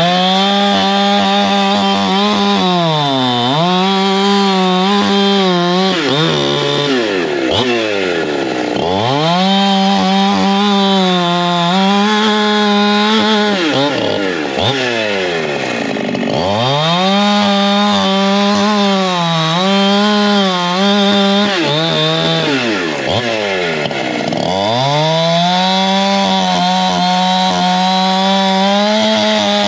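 Holzfforma G372XP Pro two-stroke chainsaw cutting through a log at high revs, its note sagging a little under the load of the cut. About four times the throttle is eased off and the pitch falls away, once almost to idle, then the saw revs straight back up into the wood.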